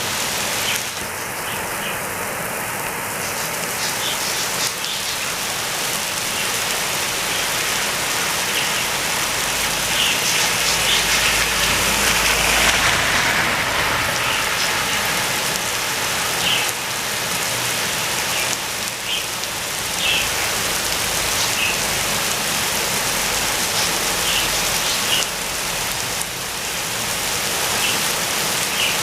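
Heavy rain pouring down steadily, with sharp individual drops ticking on a hard surface every few seconds. A low rumble swells and fades about a third of the way through.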